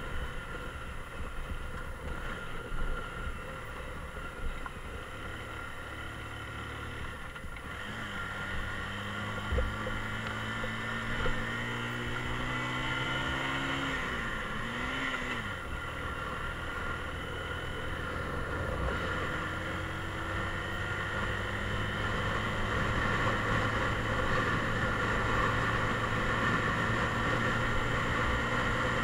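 Mondial Drift 125 motorcycle engine running under way on a rough uphill road. Its pitch glides up and down, rising, dipping and rising again about halfway through. There are two brief knocks around ten seconds in, and the engine grows slowly louder toward the end.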